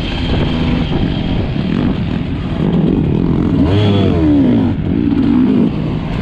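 Sherco 300 enduro motorcycle engine being ridden hard, its revs rising and falling with the throttle; about four seconds in the revs climb sharply and then drop away.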